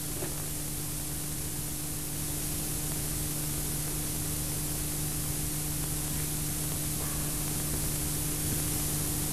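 Steady hiss and static from an old, worn VHS tape recording, with a steady low hum underneath.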